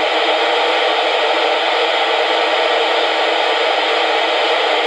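Steady, loud FM receiver hiss from a Yaesu VHF transceiver tuned to 55.150 MHz FM, with the squelch open and no signal on the channel.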